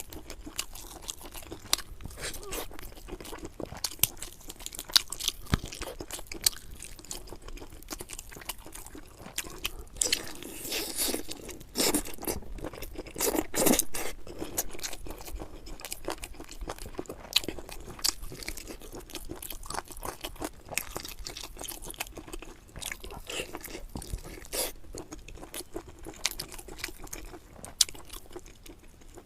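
Close-miked eating of noodles and chicken: steady chewing and biting, with many short crunches, louder and denser for a few seconds mid-way.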